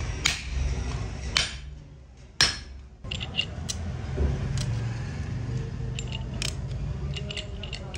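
Three sharp hammer strikes on a truck's tapered roller bearing, the third the loudest, followed by light ringing metallic clinks as the steel rollers are handled and fitted into the bearing's cage, over a steady low hum.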